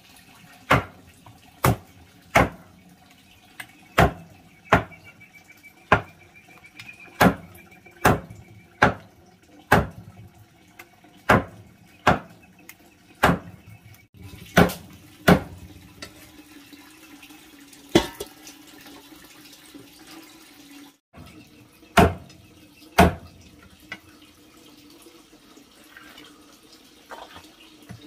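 Cleaver chopping raw poultry on a thick wooden chopping block: sharp chops about one a second, spacing out in the second half with two last hard chops.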